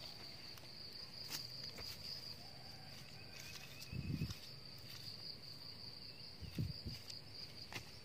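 A steady high-pitched insect trill runs on unbroken. There are two low thumps, about four seconds in and again near the seven-second mark.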